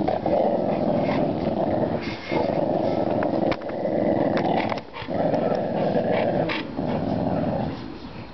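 A dog growling in long, continuous rumbles that break off briefly about four times, as one dog holds its ground against another at close quarters.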